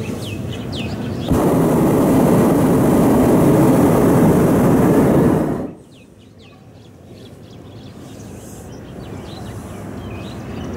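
Hot-air balloon's propane burner firing in one blast of about four seconds, starting about a second in and cutting off sharply. Birds chirp faintly before and after it.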